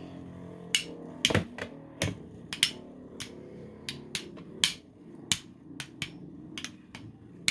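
Two 3D-printed Beyblade tops spinning against each other in a stadium, whirring steadily with about a dozen sharp, irregular clacks as they collide. It is a stamina finish: both tops are still spinning.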